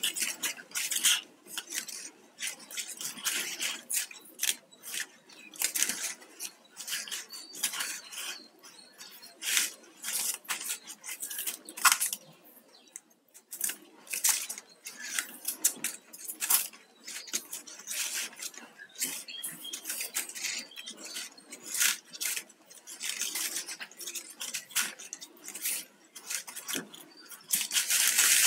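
Flat plastic basket-weaving wires rustling and clicking against each other as hands pull and thread them through a knot, in irregular clicks and scrapes with a short lull about halfway through.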